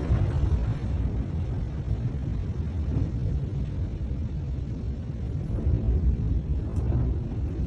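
Low, steady rumble trailing off from the Beirut port ammonium nitrate explosion, with the loudest energy deep in the bass.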